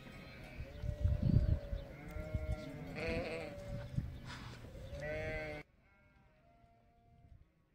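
Flock of sheep and lambs bleating, several overlapping calls one after another, over a low rumble that cuts off suddenly about two thirds of the way through; fainter bleats go on after the cut.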